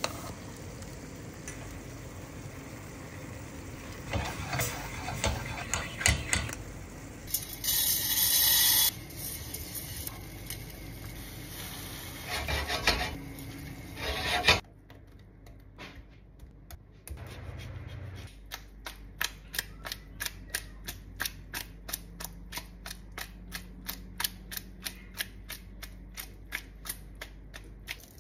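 Cooking sounds: a metal spoon stirring porcini broth in a steel pot, and hot broth poured from a steel jug into a pan of risotto rice. These are followed by a steady, even ticking about four times a second.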